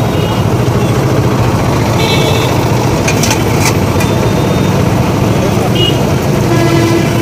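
Steady roadside traffic noise, with a few sharp metal clinks about three seconds in from a ladle against a frying pan.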